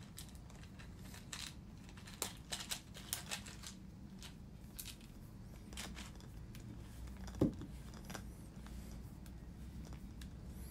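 Faint plastic clicks and taps as the spray plate of a shower head packed with ceramic balls is twisted and pressed back into place, hard to seat because the balls are packed so tightly. There is a scattering of sharp clicks in the first few seconds and one louder knock about seven seconds in.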